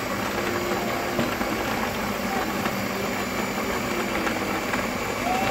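Electric stand mixer running steadily, its wire balloon whisk beating pavlova meringue in the bowl: an even motor whir with a steady hum.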